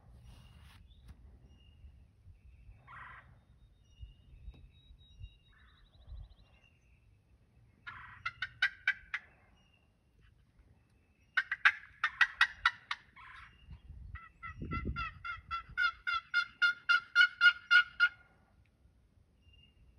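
Wild turkey gobbler gobbling three times: rapid rattling gobbles about 8 and 11 seconds in, then a longer, louder run of pulses near the end. A short low thump comes under the last one.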